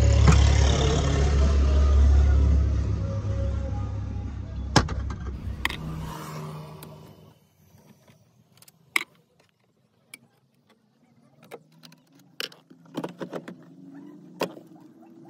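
A vehicle's low rumble that fades away over the first six or seven seconds, followed by scattered clicks and knocks of a screwdriver and metal mounting brackets as the factory car stereo is unscrewed and pulled out of the dashboard.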